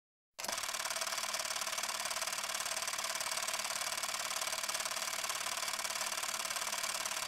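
Film projector running: a steady, fast, even mechanical clatter and whirr that starts suddenly about half a second in.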